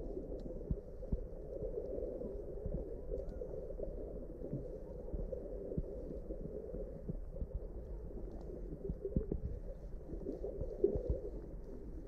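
Muffled underwater sound picked up by a GoPro Hero 6 Black held submerged in shallow lake water: a steady dull rumble with scattered soft low thuds and knocks.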